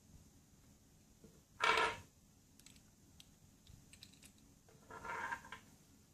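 Small metal parts of a car door lock being handled, clicking and clinking, with two brief louder clinking rattles, the first about two seconds in and the second about five seconds in.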